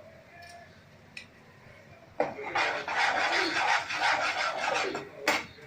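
A rough, rasping scrape starting about two seconds in and lasting about three seconds, ending with a sharp click.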